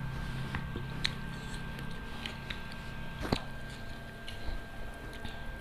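Close-up eating sounds of people chewing grilled chicken and rice by hand: wet mouth noises and small clicks, with a sharp click about a second in and a louder one just past three seconds, over a steady faint hum.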